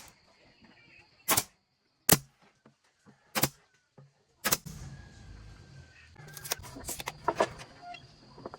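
Nails being driven into wood: five sharp single shots about a second apart, then a quicker cluster of them over a low steady background noise.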